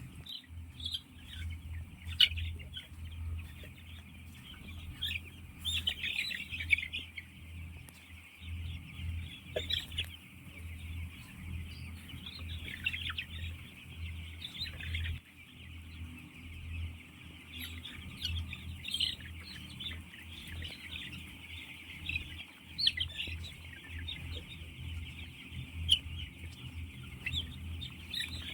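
A flock of chickens in a poultry house calling continuously, a dense chatter of many overlapping calls with a few louder ones standing out, over a steady low hum.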